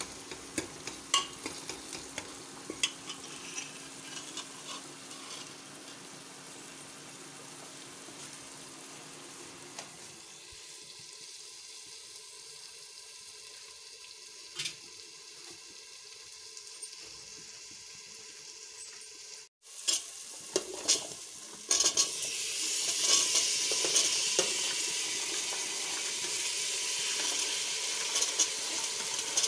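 A steel ladle stirs a frying tomato masala in a pressure cooker, clinking and scraping against the pot over a light sizzle. About two-thirds of the way through, once diced potatoes and peas are in the hot masala, the sizzle grows much louder and keeps going under the stirring.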